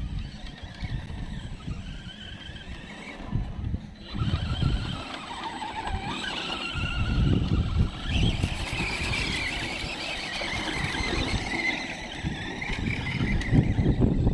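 Arrma Senton 4x4 RC car's brushless motor whining, its pitch climbing and falling as the car speeds up and slows, over a low rumbling noise.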